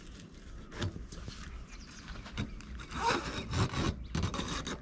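Canvas soft top of a Mahindra Thar CRDe being pulled and fastened by hand: a series of short rubbing, scraping strokes of fabric, a single one about a second in and several close together near the end.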